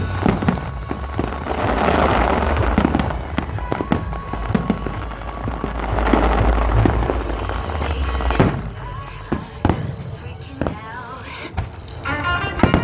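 Aerial fireworks exploding: deep rolling booms and many sharp cracks and crackles, heaviest about two and six seconds in. Music plays underneath, its melody coming through more clearly near the end as the bursts thin out.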